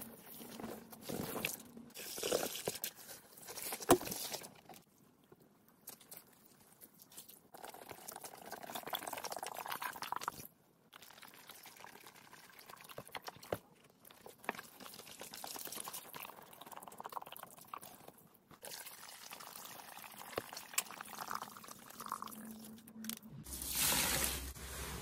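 Purple cleaning liquid poured over sponges in a plastic tub, then gloved hands pressing and squeezing the soaked sponges: uneven pouring, trickling and squelching liquid with short pauses. There is a sharp knock about four seconds in.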